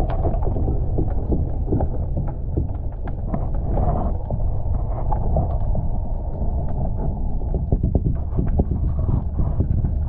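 Muffled underwater sound picked up by a camera submerged in a boat's live-fish tank: a steady low churn of moving water with frequent small knocks and clicks.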